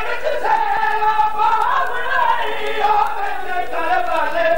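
A man's voice crying out a lament into a microphone in long, wavering sung tones, the wailing delivery of a zakir's masaib recitation for Imam Hussain.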